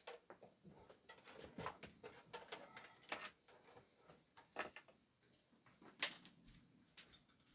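Faint scattered clicks, taps and knocks of a rack power amplifier being handled and stood upright on its end, its attached cables brushing and knocking against it, with a sharper knock about six seconds in.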